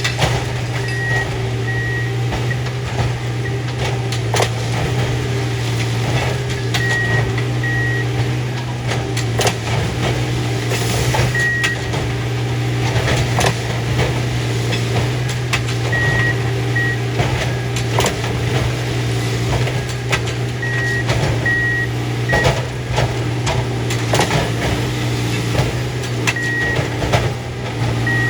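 Diesel engines of railroad track-maintenance machines running steadily, with a travel alarm beeping in short groups every few seconds and scattered metal clanks and knocks as the machines work the ties.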